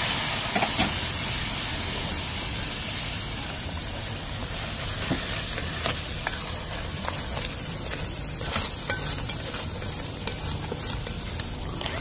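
Crab pieces in masala sizzling in a hot metal pan just after hot water has been poured in to make a gravy, while a wooden spatula stirs and scrapes through them with scattered light clicks. The sizzle is loudest at first and eases a little.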